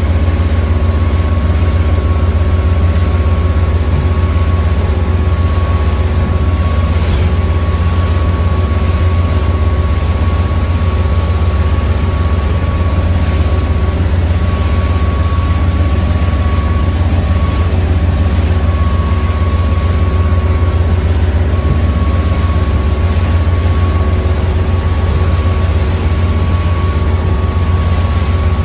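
Motor cruiser's engine running steadily under way, a loud deep drone with a thin steady high whine above it, heard from the helm.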